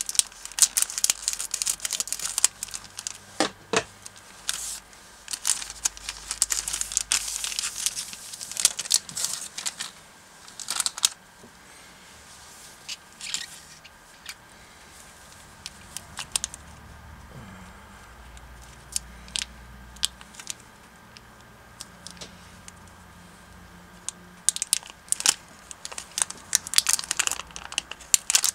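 Crinkly plastic candy wrapper snipped open with scissors, then the clear plastic film holding the gummy pieces handled: bursts of crinkling and crackling, busiest in the first ten seconds and again near the end.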